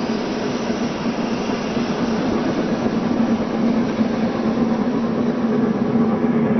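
Steady train running noise: a continuous rumble with a low hum, without distinct exhaust beats.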